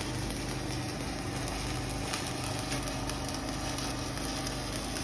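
Electric arc welding on pipe, a steady crackling sizzle, over a constant low hum.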